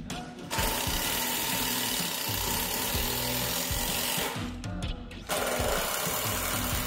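Cordless drill running into a wooden 4x4 post, in a long burst that stops for about a second just past four seconds in, then starts again.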